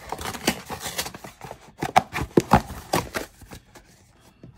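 Cardboard shipping box being handled and opened: a quick series of sharp knocks, taps and scrapes as the flap is worked and the product box is slid out, tailing off near the end.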